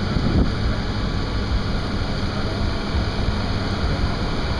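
Steady engine and tyre noise heard from inside a vehicle's cabin while it drives slowly over a snow-packed road.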